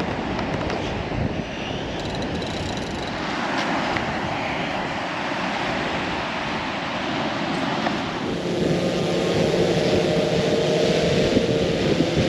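Steady rushing of surf and wind. About eight seconds in, a steady engine drone comes in over it and keeps going.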